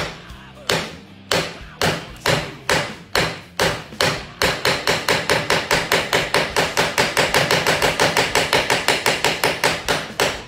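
Steel tip of a 2UUL phone-repair screwdriver striking a metal plate again and again. The sharp strikes come about two a second at first, speed up to a fast run of about five a second from around four seconds in, and slow again near the end.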